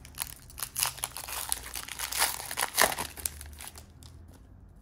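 Foil wrapper of a Panini Donruss Optic trading-card pack being torn open and crinkled by hand, crackling loudest around two to three seconds in, then dying down to light rustles near the end.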